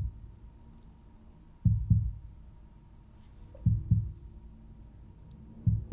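Slow heartbeat sound: low double thumps (lub-dub), three pairs about two seconds apart.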